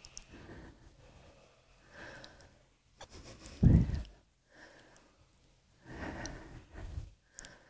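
A person breathing audibly in and out close to the microphone, a handful of soft breaths, with one much louder, deep puff or thump a little past the middle.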